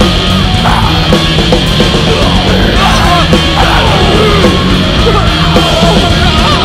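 Loud heavy rock music, dense and steady, with bending, gliding pitched lines over it.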